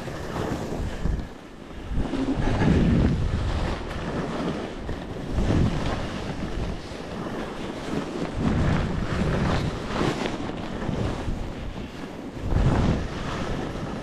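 Wind buffeting the microphone during a downhill ski run, with skis hissing and scraping over snow. The noise swells and falls in surges every few seconds.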